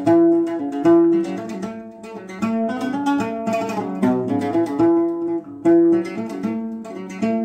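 Solo oud playing an instrumental interlude of a Sudanese haqiba song: a melodic run of plucked notes, several a second, with no singing.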